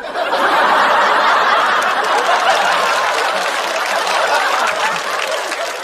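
Studio audience laughing and clapping after a comedian's punchline. The sound breaks out all at once and slowly dies down.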